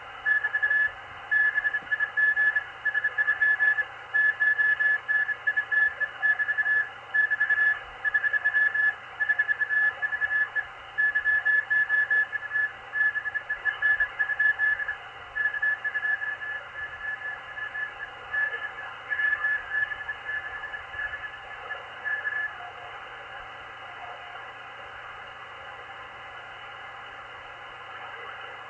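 Morse code (CW) on the 20-metre amateur band through a Malachite DSP SDR receiver: a keyed whistle-like tone of dots and dashes over steady band hiss. The signal grows weaker and stops about 22 seconds in, leaving only static.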